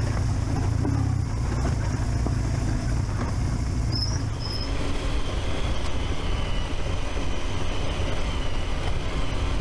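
Adventure motorcycles riding fast on a gravel forest track, heard from onboard: steady engine drone mixed with wind and tyre noise. The sound changes about halfway through as a second bike's onboard sound takes over.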